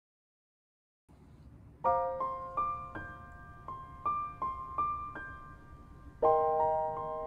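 Background piano music. After about a second of silence, a gentle melody of single notes starts about two seconds in, and fuller chords come in near the end.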